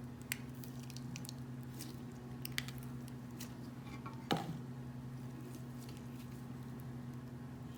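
Thick, rubbery, putty-like slime being squeezed and pulled by hand, making scattered soft sticky clicks and squelches over a steady low hum, with one short sound sliding down in pitch about four seconds in.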